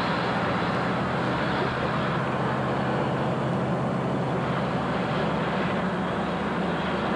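A Mack fire engine on the road, heard from on board: a steady engine drone under a broad rush of road and wind noise. The engine note changes about five seconds in.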